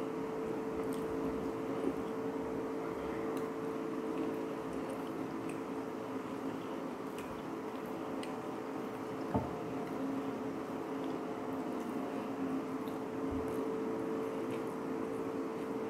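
Soft, wet squishing from a dish of meat intestine curry, with faint scattered ticks, over a steady low hum. A single knock sounds about nine seconds in.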